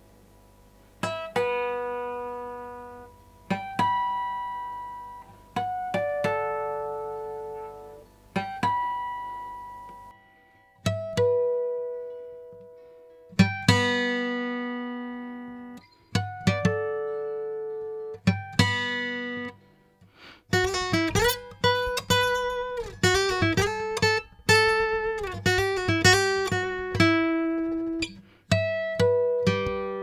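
A Chinese copy of a Martin D45 acoustic guitar playing a lead melody of single picked notes, each left to ring out. The notes come slowly at first, about one every two seconds, then in a quicker run past the middle, then slowly again.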